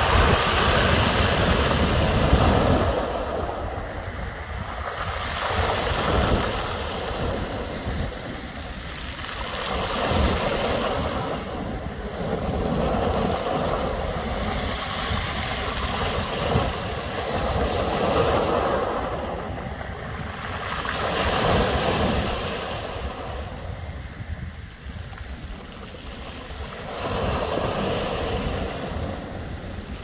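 Small waves breaking on a pebble beach, the surf swelling and fading every few seconds, with the rattle of stones rolled by the wash.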